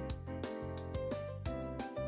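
Background music: a brisk melody of short pitched notes, about four a second, over a steady bass line.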